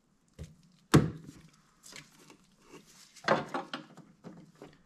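Pliers and a gloved hand working on a snowmobile's oil line, fitting a hose clamp in place of a zip tie. A faint click, then a sharp click about a second in, the loudest sound, then light rubbing, and a cluster of clicks and rubbing near the end.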